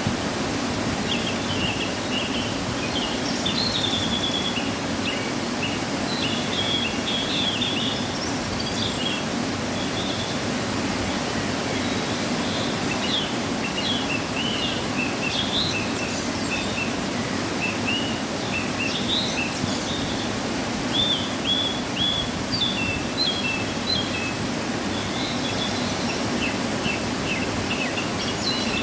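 Waterfall rushing in a steady, even roar of water, running full after rain. Over it, birds chirp again and again in short, high calls throughout.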